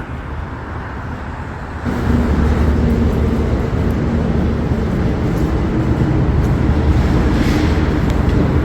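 Street traffic: a motor vehicle's engine running with a steady low rumble, which gets suddenly louder about two seconds in.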